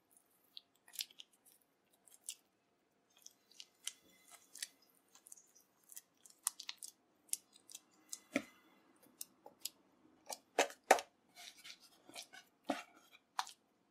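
Oiled roti dough being worked by hand: small wet, sticky clicks and squelches as the dough is rolled up and tucked into a ball. These get busier and louder in the second half, with a few sharper smacks as the ball is handled on the wooden board.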